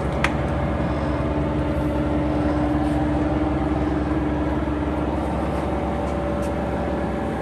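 Blanchard No. 20 vertical rotary surface grinder running, a steady machine hum with a held mid-pitched tone. A single sharp click comes just after the start.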